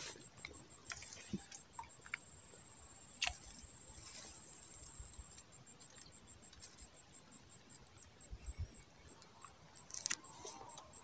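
Quiet waterside ambience: a faint, high-pitched insect trill pulses steadily, with a few soft clicks and rustles, the clearest a little over three seconds in.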